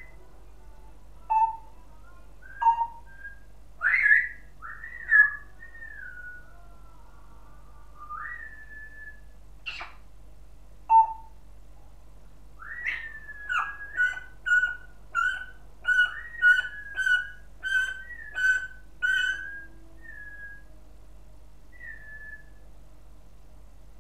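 African grey parrot whistling: scattered gliding whistles and a sharp click, then a rapid run of about a dozen short whistled notes, roughly two a second, trailing off into a couple of softer ones near the end.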